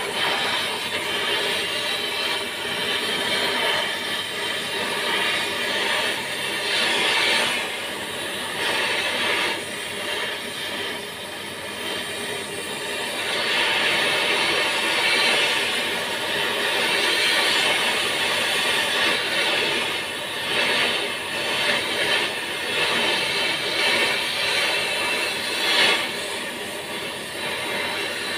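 Oxy-fuel gas torch flame hissing steadily as it heats a cast-iron tractor rear axle housing.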